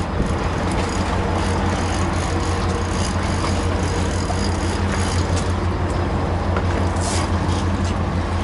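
Boat's outboard motors running steadily at low speed, a constant low hum under a wash of wind and water noise.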